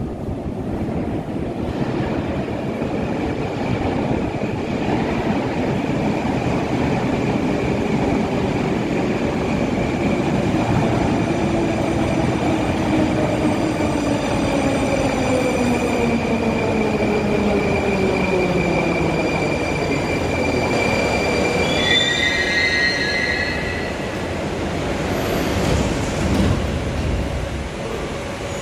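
Metro train pulling into the station: a steady rumble of wheels on rails, with a whine that falls in pitch as the train slows. Brakes squeal high near the end as it comes to a stop, followed by a short burst of noise.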